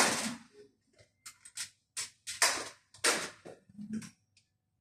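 A metal walking frame being set down on stairs while a person steps with it: a run of short, irregular knocks and scuffs.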